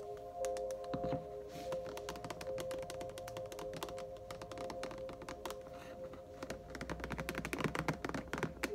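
Rapid, light tapping on an object, many quick taps a second, growing louder and busier near the end, over soft background music with long held notes.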